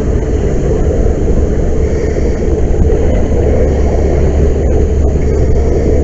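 Steady, loud roar of a jet of fire burning from a rail tank car training prop, mixed with the rush of a hose line's water stream being sprayed onto it.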